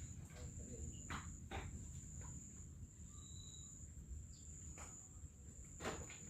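A steady, high-pitched insect trill, like a cricket's, with a few short clicks or knocks scattered through it.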